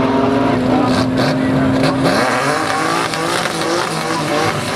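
Two drag-racing cars accelerating hard down the strip, their engines rising in pitch again and again as they shift up through the gears. A steady lower engine note fades out about two seconds in.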